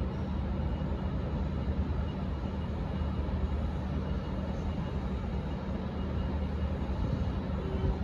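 Steady low drone of diesel trains running at idle, with the general noise of a busy rail yard.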